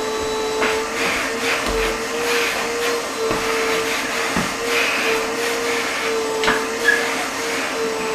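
Canister shop vacuum running steadily, its hose being drawn over a tiled floor. It gives a steady motor whine over the rush of air, with a few short clicks.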